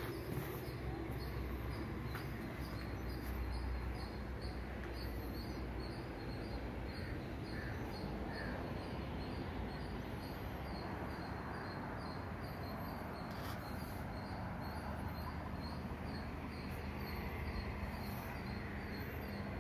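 Outdoor ambience: a steady low rumble with a faint high chirp repeating evenly a few times a second.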